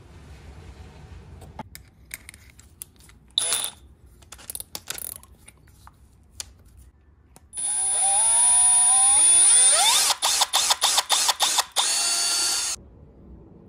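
Cordless drill with a twist bit boring a small hole through a wooden strip: the motor speeds up over about two seconds, then a rapid run of clicks, about four a second, before it runs on steadily for a moment and stops. Short handling clicks and rattles come a few seconds before the drilling.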